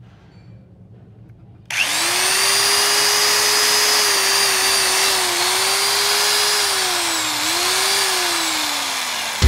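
Corded electric drill switched on about two seconds in and running at speed with a steady motor whine. The pitch dips briefly twice, then falls as the motor slows near the end.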